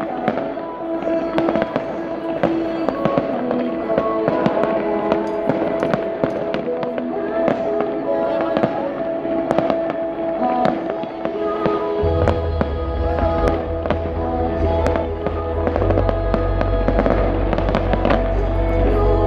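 Fireworks going off in quick succession, many sharp bangs and crackles, over music with long held notes. A heavy bass comes into the music about twelve seconds in.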